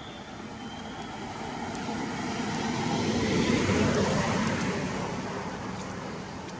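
A vehicle passing by: a broad engine noise that grows louder, peaks about halfway through and fades away.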